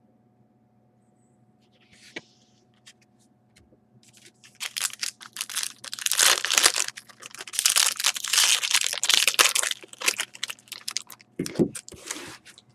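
Trading-card pack wrapper crinkling and tearing as the pack is opened, a dense run of crackling that starts about four and a half seconds in and lasts some six seconds, with a short rustle near the end.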